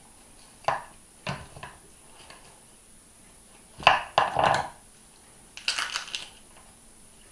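Kitchen knife and raw rabbit pieces knocking on a wooden cutting board during butchering: single knocks about a second in, then a louder clatter of knocks about four seconds in and another run of knocks near six seconds.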